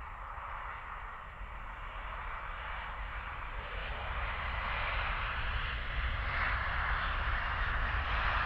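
Twin-engine Embraer E-Jet airliner rolling out on the runway after landing, its jet engines giving a steady rushing roar that grows louder as it draws nearer.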